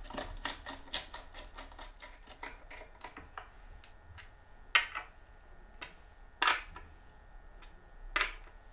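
Small metal clicks and taps of a steel pin being fitted into holes in a plywood panel: a run of quick faint ticks, then three sharper clicks at even intervals near the middle and end.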